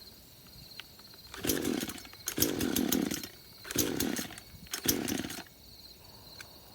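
Gas Craftsman two-stroke chainsaw being pull-started on full choke, firing in four short bursts about a second apart without staying running. It is an old saw, stored for years, that struggles to pick up fuel.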